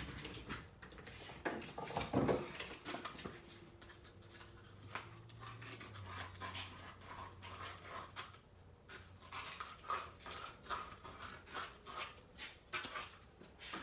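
Sandpaper rubbed by hand against a part in short, repeated strokes, more regular in the second half.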